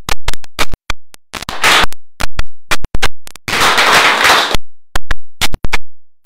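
Audience clapping: loud, sharp separate claps, swelling twice into a short spell of fuller applause.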